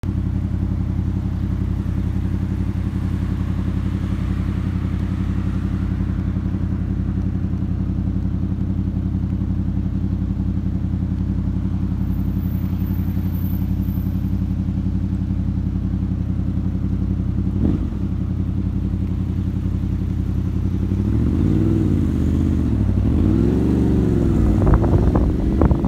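Motorcycle engine running at a steady pitch, heard from on the bike. About 21 seconds in, the pitch starts rising and falling as the bike speeds up and slows in traffic, with wind buffeting the microphone near the end.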